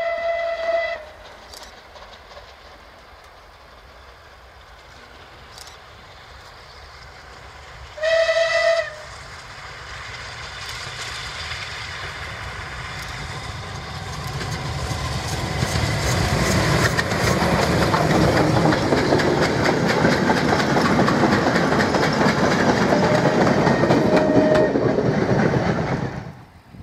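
Steam locomotive whistle blowing a single steady note that stops about a second in and sounds again for about a second some eight seconds in. Then the train's running noise builds as it approaches, staying loud for about ten seconds before cutting off suddenly near the end.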